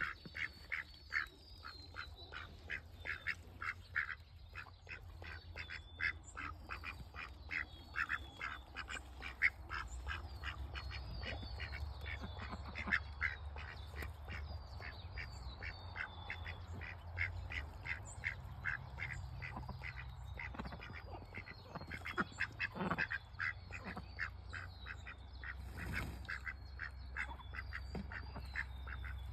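Domestic ducks quacking in a quick, steady series, about three short quacks a second, as they forage.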